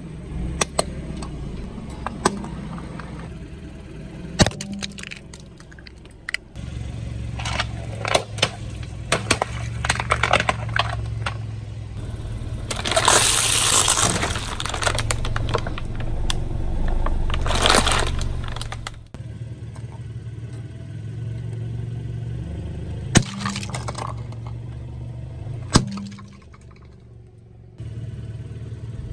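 A car tyre rolling over and crushing plastic objects, with a series of sharp cracks and snaps over a low engine hum. A longer hissing, spattering burst comes about halfway through as containers of coloured liquid are squashed and spray out.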